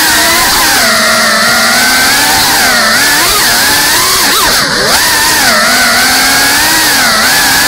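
GEPRC Cinelog 35 cinewhoop's brushless motors and ducted propellers buzzing hard, the pitch sweeping up and down constantly as the throttle changes through flips and rolls. The sound briefly drops in level and pitch about four and a half seconds in, then picks up again.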